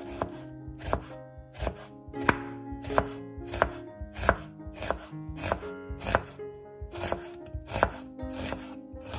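Kitchen knife slicing a peeled onion on a wooden cutting board: a crisp cut ending in a knock on the board, about three cuts every two seconds at an even pace.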